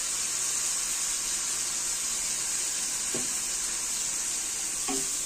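Onion-tomato masala frying in mustard oil in a pan, a steady sizzle, with two faint knocks of the spatula as it is stirred, about three seconds in and near the end.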